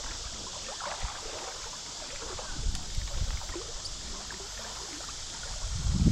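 Outdoor creek ambience: a steady high hiss, with low rumbles of wind on the microphone about two and a half seconds in and a louder gust near the end.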